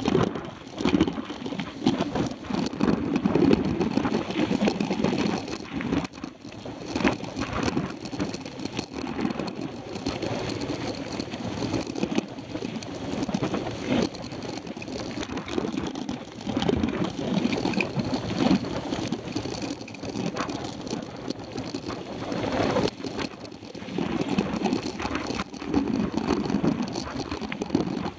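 Riding noise of a mountain bike on a dirt road, picked up by a camera on the handlebars: wind buffeting the microphone and tyres rumbling over the dirt, with frequent rattles and knocks from bumps.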